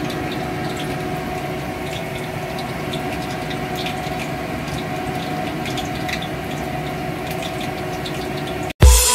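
Water boiling in a steamer pot: a steady rushing with small scattered pops and a faint hum. It cuts off abruptly near the end as loud music begins.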